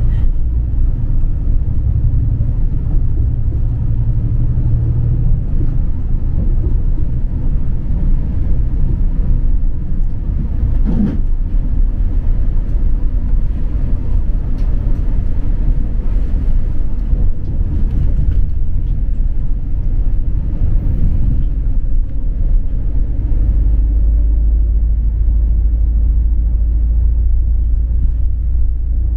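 Steady rumble of a moving city bus, engine and road noise heard from inside the cabin.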